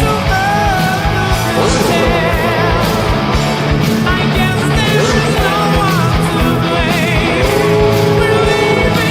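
Rock song with a sung vocal over a steady drum beat and guitar.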